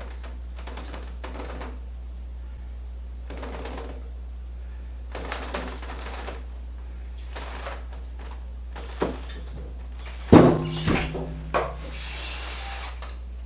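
Rigging work on a machine being moved with slings and steel rods: scattered rubbing and scraping, then a loud metal clank with a brief ring about ten seconds in, followed by a couple of lighter knocks. A steady low hum runs underneath.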